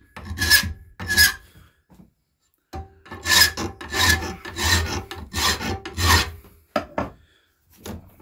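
Steel hand file rasping back and forth across a knife blade's shoulder held in a hardened steel filing guide, about one and a half strokes a second. The file rides on the hardened guide without cutting it, so the edge is filed straight. The filing pauses briefly about two seconds in, and stops about six seconds in, followed by a few short sharp clicks.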